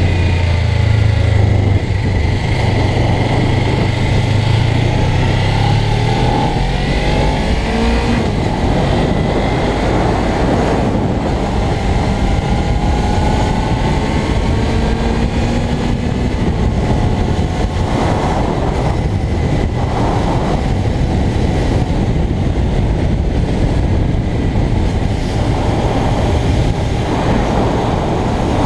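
Suzuki GSX250R's parallel-twin engine through its standard exhaust while riding: a low steady note for the first several seconds, then revs rising as the bike speeds up. Wind and road noise rush over the microphone throughout.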